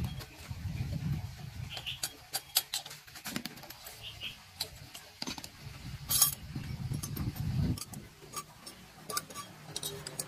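Metal parts and hand tools being handled: a string of irregular sharp metallic clicks and clinks, over low rubbing and handling noise.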